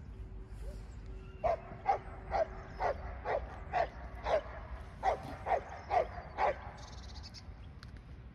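An animal giving a quick series of about eleven short, evenly spaced calls, roughly two a second, lasting about five seconds.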